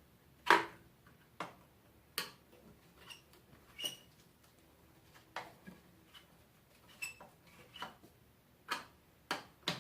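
Screwdriver and hand tools clicking and tapping against the metal parts of a trash compactor in about a dozen scattered, irregular sharp clicks, the loudest about half a second in, while working a screw that is thought to be just spinning in place.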